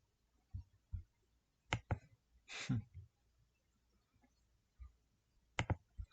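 Scattered clicks from a computer mouse and keyboard, about eight in all at uneven gaps, with one short rushing noise about two and a half seconds in.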